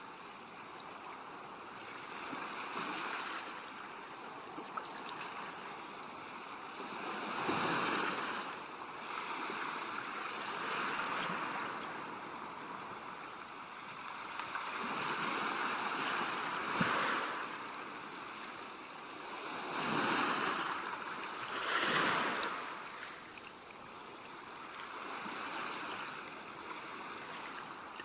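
Ocean waves breaking and washing on a shore, a steady surf hiss that swells with each wave, the loudest breaks about 8, 20 and 22 seconds in.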